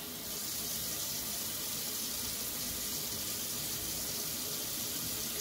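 Water running steadily from a kitchen faucet into a stainless steel sink.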